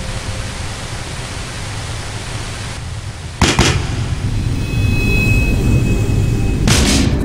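Cinematic intro sound effects: a steady rumbling hiss like a storm, broken by a sharp hit about three and a half seconds in, growing louder and busier near the end.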